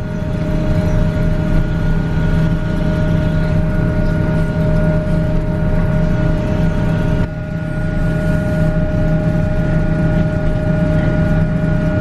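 Grimme Varitron 220 self-propelled potato harvester running, heard from inside its cab: a steady engine drone with a constant higher whine over it. The sound dips briefly about seven seconds in, then carries on the same.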